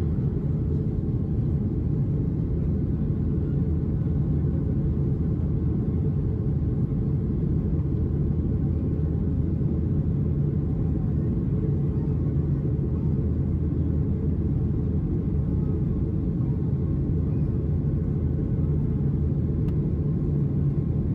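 Cabin noise inside a Boeing 737-800 climbing out after takeoff: its CFM56-7B turbofan engines and the air rushing past the fuselage make a steady low rumble.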